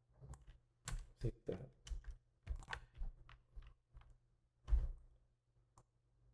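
Computer keyboard and mouse in use: irregular clatter of key presses and clicks, with one louder knock about five seconds in.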